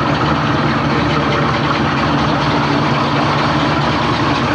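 Engine of a hot-rodded 1960s Chevrolet Nova with a big hood scoop, idling steadily as the car rolls slowly by, without revving.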